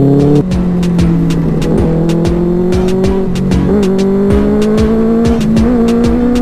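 Benelli 600i's inline-four engine under acceleration on the move: an upshift about half a second in drops the pitch, then the revs climb slowly through the next gear. A patter of sharp clicks runs over it.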